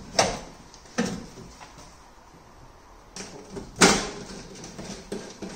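About five sharp metallic clicks and knocks of hand work in a car's engine bay as a cable is unhooked from the engine, the loudest about four seconds in.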